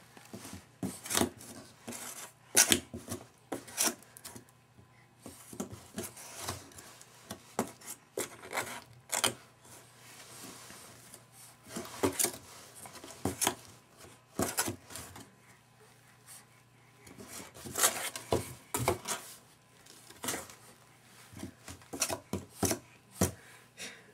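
Cardboard box flaps being swatted, grabbed and scraped by a baby's hands: irregular taps, slaps and rustles in bursts, with rests of a second or two between them.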